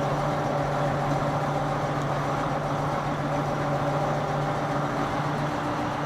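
Diesel engine of a Case 1570 tractor running steadily at constant speed, a continuous even hum.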